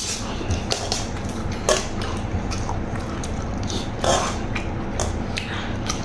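Eating sounds: a few scattered light clicks and scrapes of a metal spoon against a metal tray, over a steady low hum.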